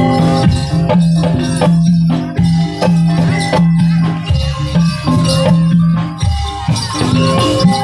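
Jaranan gamelan music played live: struck metal keys and gongs ringing in held notes over a steady beat of drum strokes, with jingling rattle-like percussion on top.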